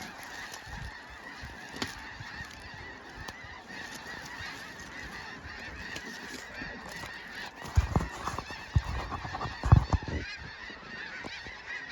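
A large flock of snow geese calling, a dense, continuous chorus of overlapping honks. A few low thumps stand out about eight and ten seconds in.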